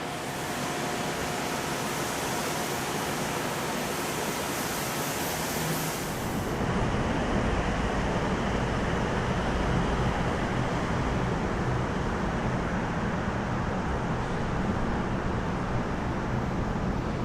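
Steady rushing noise of workshop machinery. About six seconds in, the hiss loses its top and a deeper rumble takes over.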